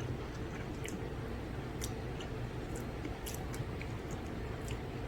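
A person eating noodles fast: faint wet chewing with small sharp mouth clicks scattered through, over a steady low background hum.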